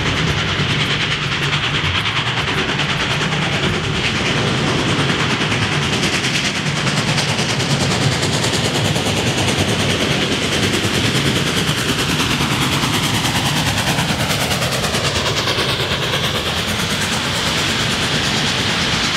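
Freight train cars rolling past, with a steady noise of wheels on rail.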